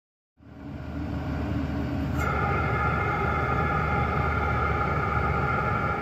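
All-in-one diesel air heater running steadily at high heat, a steady mechanical rumble and hum that fades in about half a second in. A click comes about two seconds in, and a steady high whine joins and holds.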